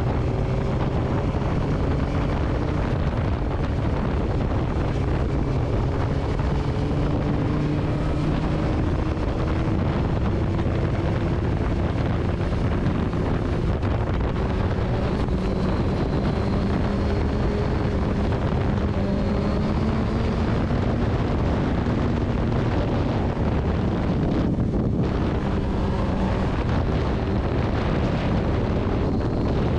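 Motorcycle being ridden, with heavy wind noise on the microphone. The engine pitch climbs slowly, drops about halfway through as if on an upshift, then climbs again.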